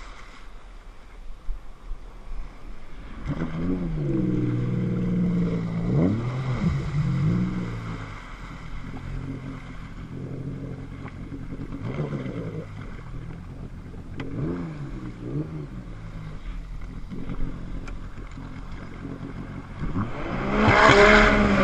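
Jet ski engine revving up and down in short rises and falls, then running more evenly over splashing water. Near the end it suddenly gets much louder, with rushing water and spray.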